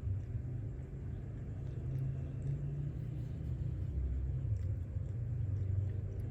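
A low, steady rumble that swells and eases slowly.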